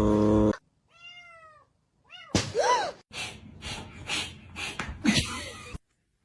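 A domestic cat's loud drawn-out yowl cuts off about half a second in. The cat then meows twice, each call rising and falling in pitch, the second louder. A run of short knocks and scuffles follows.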